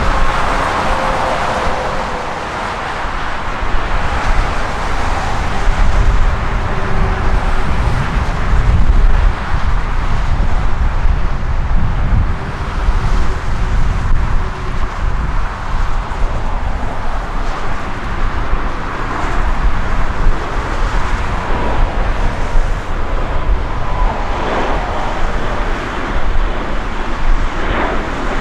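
Jet airliner engines rumbling steadily, with gusts of wind buffeting the microphone and a faint engine whine running through.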